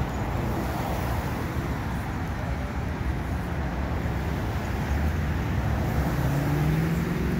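Cars driving by with steady road noise; near the end a patrol car accelerates past, its engine note rising.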